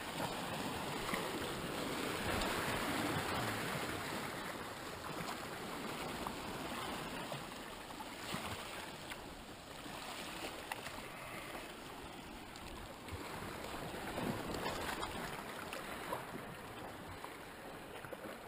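Sea swell washing and swirling against the rocks below, a steady rush of surf that rises and eases.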